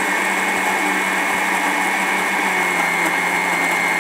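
Countertop blender running steadily at full speed with a constant high whine, puréeing a thick avocado and sour cream mixture until smooth.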